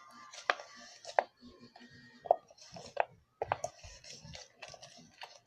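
Irregular taps and clicks of a utensil knocking against a bowl as slime is stirred, about a dozen sharp strikes at uneven intervals.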